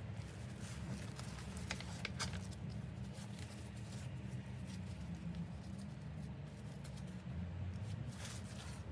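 Light rustling and a few small clicks of a bag and its packaging being handled, over a steady low hum.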